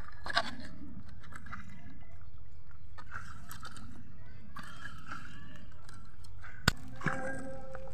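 Dry bamboo sticks being laid out and shifted on dirt: light wooden clattering and scraping, with one sharp knock near the end.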